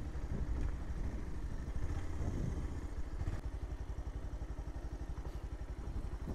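Single-cylinder motorcycle engine running at low speed, uneven at first and then settling into a steady, even putter about halfway through.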